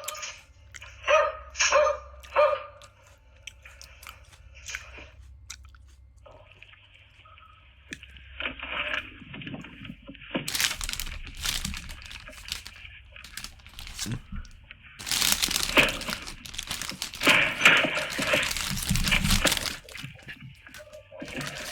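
A dog barks a few times, then after a pause come loud bursts of harsh crashing noise, heaviest about halfway through and again in the last third.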